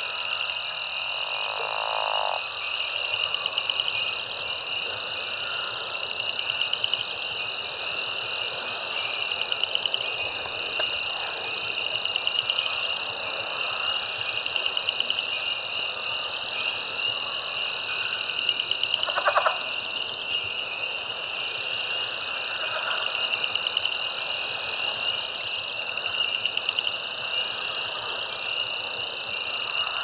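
Dense frog chorus of spring peepers and Cajun chorus frogs calling without pause: a wall of high peeps and pulsed trills that swells every couple of seconds. A lower call from another frog stands out about two seconds in and again about two-thirds of the way through.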